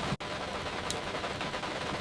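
Steady rain hiss mixed with fireplace crackle, with a sharp crackle just under a second in. The sound drops out for a split second shortly after the start, like a loop splice.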